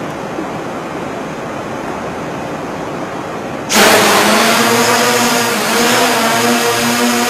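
Steady hiss, then about three and a half seconds in the electric motors and propellers of two quadrotors start suddenly and run on as a loud, steady pitched buzz.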